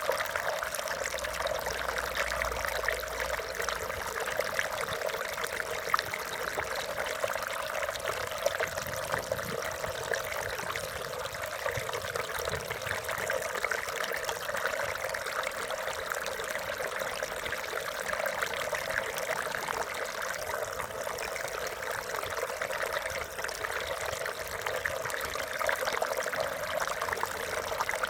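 Water flowing and splashing over rocks in a small stream, a steady babbling rush.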